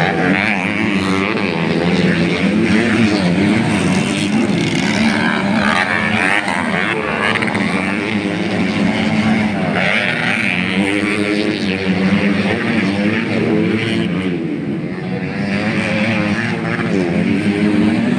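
Several motocross dirt bike engines running at once, their pitch rising and falling in overlapping sweeps as they rev up and back off, over a steady drone.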